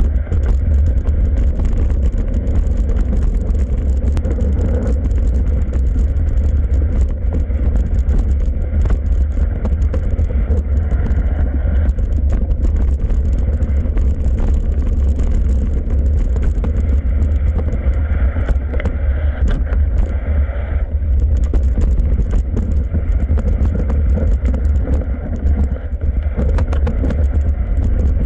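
Mountain bike descending a rough dirt trail at speed: a constant low rumble of wind buffeting the camera microphone, with frequent clicks and rattles from the bike over roots and stones.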